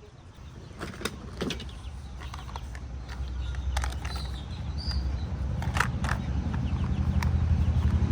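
A low engine rumble, growing steadily louder, with scattered sharp clicks and a couple of brief high chirps.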